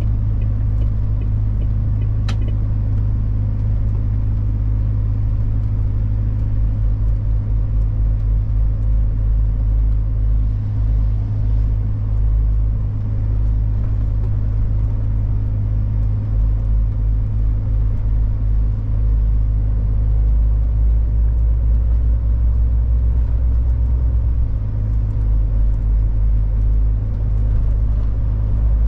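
Heavy truck's diesel engine running, a steady low rumble heard from inside the cab.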